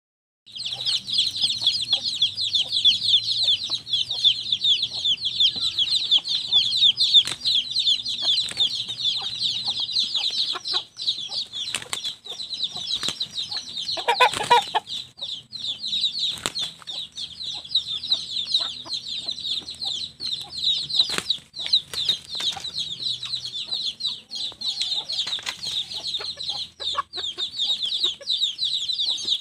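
A dense, steady high chirping, with scattered sharp flaps and knocks from native roosters sparring. A short, lower call comes about halfway through.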